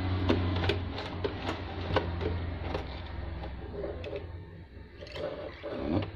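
Small plastic clicks and taps from a JH988 portable mini sewing machine being handled as it is threaded, over a steady low hum that fades out about three seconds in.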